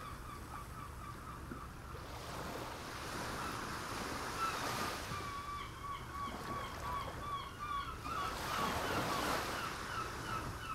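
Sea waves washing onto a shore, swelling up twice, with a bird calling in quick runs of short, evenly repeated notes over them.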